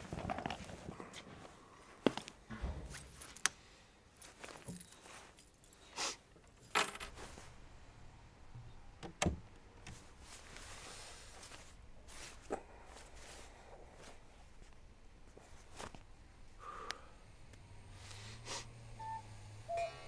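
Scattered sharp clicks and knocks, about a dozen at irregular intervals, from a front door and a suitcase being handled as someone comes in, with a jangle of keys.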